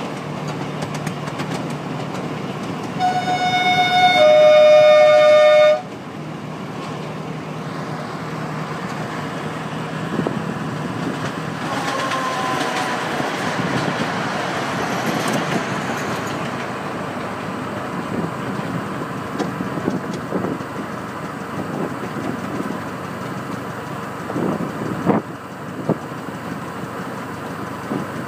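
Miniature railway locomotive running along the track, steady running noise with a few clicks. A horn sounds for about three seconds a few seconds in, two notes with the pitch stepping down partway through.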